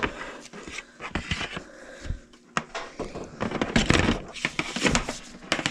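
Irregular knocks, clicks and scraping of gear being handled on a workbench right beside the microphone, with the loudest clatter in the second half.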